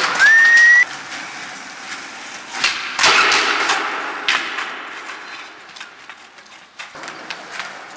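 A short, loud rising whistle, then the crack and slap of a skateboard on concrete with a stretch of rolling and scraping about three seconds in and another knock a little later, as a flatground trick attempt ends with the skater falling.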